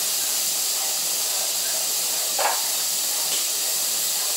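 Steady hiss of steam escaping from an aluminium pressure cooker on the gas stove, with a single light knock about two and a half seconds in.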